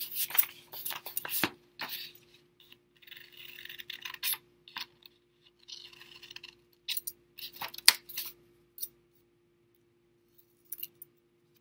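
Scissors snipping through construction paper in short, irregular cuts, with the rustle of the paper being turned and handled between snips.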